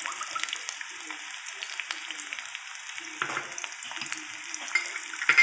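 Chopped onion sizzling steadily in hot oil in a kadhai as it is sautéed, with a ladle scraping and clicking against the pan now and then as it is stirred.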